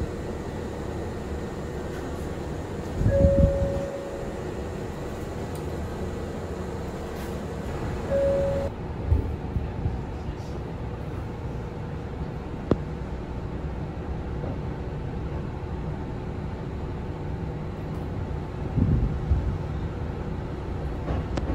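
Inside the cabin of a Kintetsu 6400 series electric train standing at a platform: a steady hum of onboard equipment, with two short single-pitch tones a few seconds apart and a brief low rumble about three seconds in. Near the end a louder low rumble comes as the train begins to move off.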